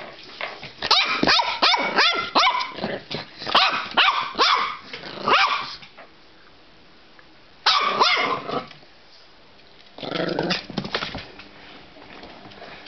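Border terrier puppy barking: a rapid run of yaps for about five seconds, then two shorter bursts of barks.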